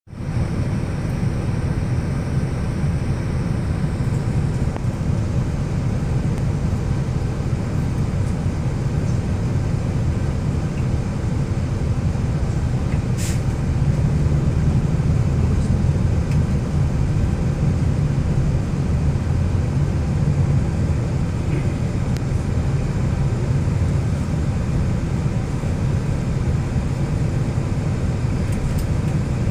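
Vehicle engine running, heard from inside the cabin as a steady low rumble, with a single sharp click about 13 seconds in.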